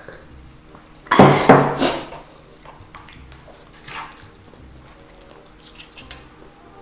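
Eating sounds from a fried-chicken mukbang: a loud crunchy bite lasting about a second, starting about a second in, then small clicks of utensils and a plate.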